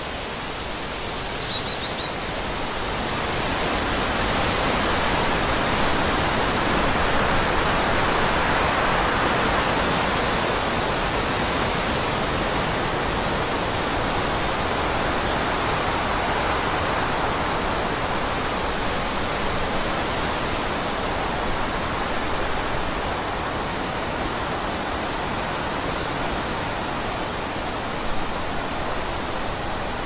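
Forest ambience: a steady rushing noise that swells over several seconds and then holds. A brief high chirp sounds about a second and a half in.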